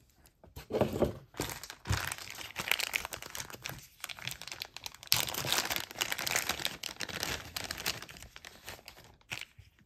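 Packing wrapping crinkling and crackling as it is handled and pulled open by hand, in quick irregular bursts with a couple of short pauses.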